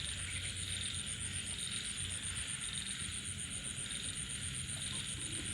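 Dense chorus of frogs calling at night after rain: many overlapping calls blending into a steady, even din, with a thin steady high tone over it.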